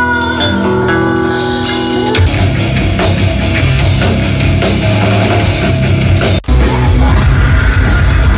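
Black metal band: ringing, held electric guitar chords, then the full band comes in about two seconds in with distorted guitars, bass and drums. The sound drops out for an instant about six seconds in.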